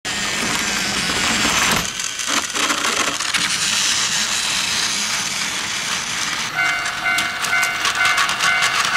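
Battery-powered Plarail toy trains running on plastic track, a steady motor whir with wheel clatter. About six and a half seconds in, a toy railroad crossing starts its electronic warning chime, beeping about twice a second as the freight train passes.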